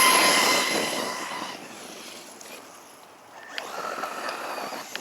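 Battery-electric remote-control car on a 3S battery driving across a field: its motor and gears whine over a hiss of tyres on the ground. It fades as it drives away, then grows louder again from about three and a half seconds in as it comes back.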